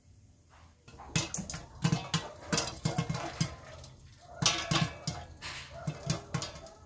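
Popcorn kernels popping inside a covered stainless steel pot with a glass lid: irregular sharp pops and knocks against the lid and pot, starting about a second in.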